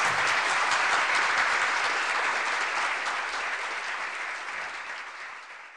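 Audience applauding, many hands clapping together, the applause fading out steadily toward the end.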